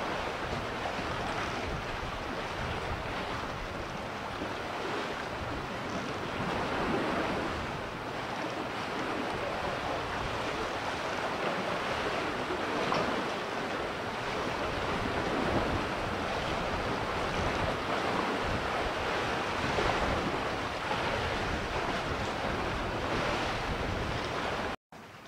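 Sea water washing and lapping around a floating fishing platform, a steady wash with wind rumbling on the microphone. It cuts off abruptly near the end.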